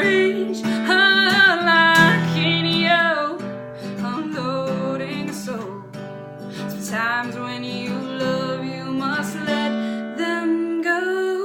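Acoustic folk song: acoustic guitar strumming under a female voice singing a wavering melody in two phrases, the accompaniment thinning to a held chord near the end.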